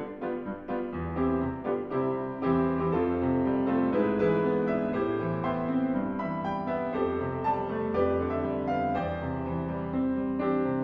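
Background piano music: a flowing run of notes over held low bass notes.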